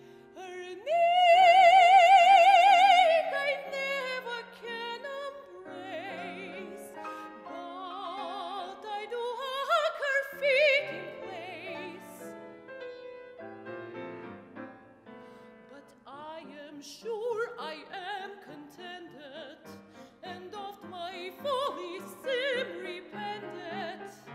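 Mezzo-soprano singing in operatic style with wide vibrato, accompanied by a grand piano. About a second in she holds a loud high note, then she sings a rising phrase to another high note around ten seconds, with softer phrases after.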